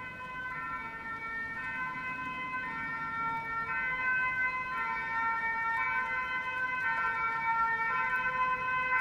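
Belgian emergency-vehicle two-tone siren alternating between a high and a low note, each held about a second, growing gradually louder.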